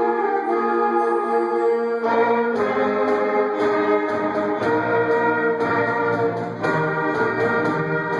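Orchestral march music led by brass, in held chords, with a lower part coming in about two seconds in.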